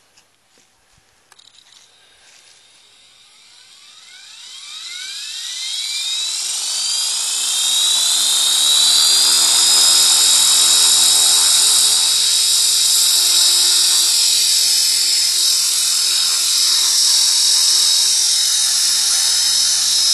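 T-Rex RC helicopter spooling up: a high whine rises steadily in pitch and loudness over about six seconds as the rotor comes up to speed, then holds at a steady high whine with a low rotor hum beneath.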